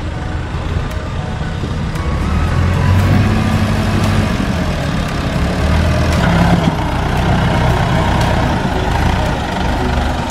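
Landini DT85 4WD tractor's diesel engine running steadily, working harder and louder from about two seconds in to about seven seconds in as its front blade pushes limestone and soil.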